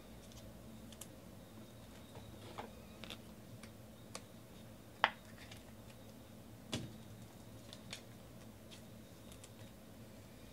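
Trading cards being handled and set down on a table: scattered soft clicks and taps, the loudest about five seconds in.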